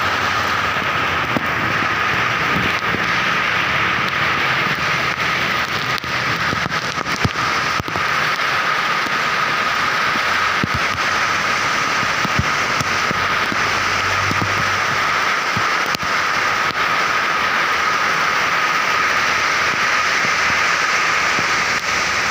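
Heavy rain falling steadily in a dense hiss, with scattered sharp clicks of drops striking close by.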